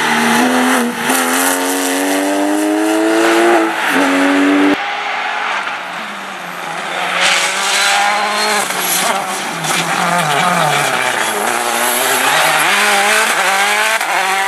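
Rally cars at full throttle: a Porsche 911's flat-six accelerating with a rising engine note, which cuts off abruptly about five seconds in. Then a Citroën C4 WRC's turbo four-cylinder revs through a corner, its note dropping and then climbing again.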